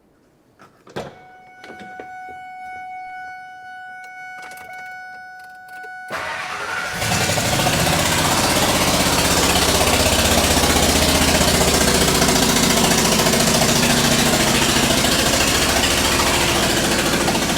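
A Ford F-250's Triton engine, which has a blown-out spark plug, is started and then runs with a loud racket from the open plug hole: the sound of a spark plug blown out of an aluminum cylinder head. Before the start, a steady warning tone sounds for about five seconds after a couple of clicks. The engine catches about six seconds in.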